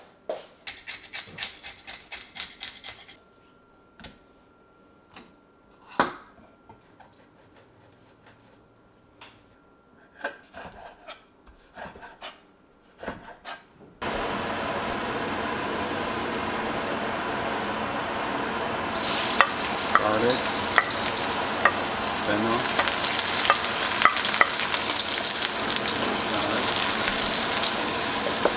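Sliced shallots and fennel sizzling in a hot wok, stirred and scraped with a wooden spatula. Before this there are scattered clicks and knocks of kitchen handling; about halfway through, a steady hiss starts suddenly, and the sizzling builds a few seconds later.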